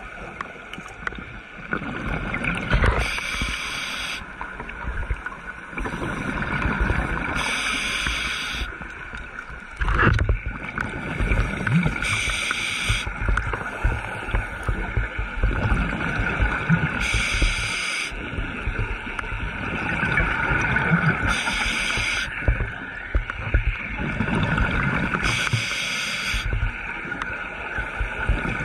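Scuba diver breathing underwater through a regulator: a rush of exhaled bubbles about every four to five seconds, six times, over a steady hiss. There is one sharp knock about ten seconds in.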